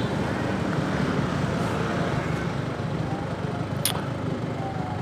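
Yamaha RX-King's single-cylinder two-stroke engine running steadily under way, with a short sharp click about four seconds in.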